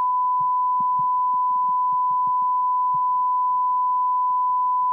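A steady, high-pitched electronic beep: a single pure tone at about 1 kHz, held unbroken at one level and pitch throughout.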